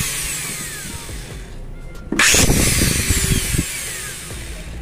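Angle grinder's exposed motor jumping into a brief spin as its worn, thin carbon brush is pushed by hand onto the commutator, then winding down with a falling whine; this happens again about two seconds in. The brush not seating on the commutator is the fault that stops the grinder running.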